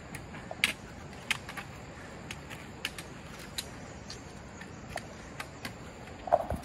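Footsteps climbing stone steps: irregular sharp clicks and scuffs, roughly one every half second to a second, over a steady background hiss.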